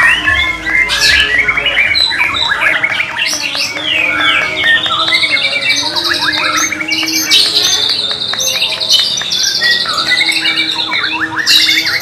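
Caged white-rumped shamas singing without a pause: a dense, varied song of rapid high trills, quick rising and falling whistles and chattering phrases.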